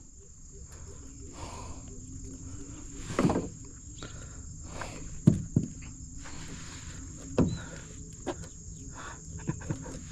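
Steady high-pitched chorus of crickets and other insects, broken by a few short knocks and thumps, the loudest about five seconds in.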